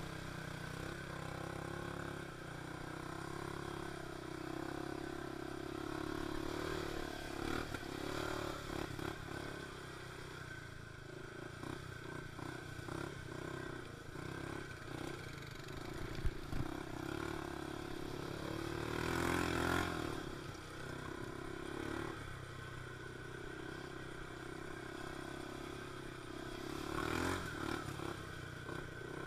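ATV engine running as the quad rides over a rough, muddy trail, with the racks and body plastics clattering over bumps. There is a sharp knock about halfway through, and the engine rises twice under throttle, about two-thirds of the way through and again near the end.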